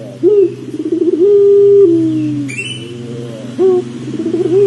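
Puter pelung dove cooing twice. Each coo is a sharp rising note, then a quick rolling stretch, then a long drawn-out note that slowly falls in pitch. A brief high chirp comes about halfway, and a steady low hum runs underneath.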